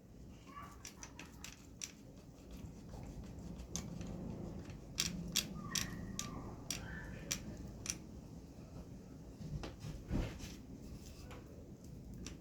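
Scattered clicks and light knocks of a clamp and wooden boards being handled, with a heavier knock about ten seconds in.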